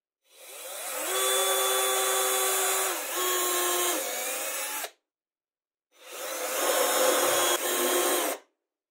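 Cordless drill boring into a plywood block in two runs. Each time the motor whines up to speed, the pitch sags as the bit loads up in the wood, then it stops abruptly. The second run starts about a second after the first.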